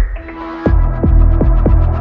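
Electronic dance music. After a brief break, a steady kick drum with hi-hats comes back in about two-thirds of a second in.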